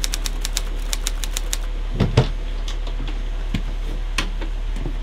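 A quick run of sharp, irregular clicks over a steady low hum. The clicks thin out after about a second and a half, and two heavier knocks come about two seconds in.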